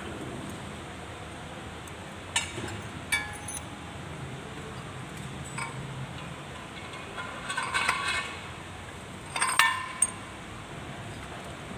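A steel pipe clinking against the splined axle shaft and cast housing of a tractor rear axle as it is fitted over the shaft: a couple of sharp metal clinks, a short rattle of clinks in the middle and two more near the end, over a steady background hiss.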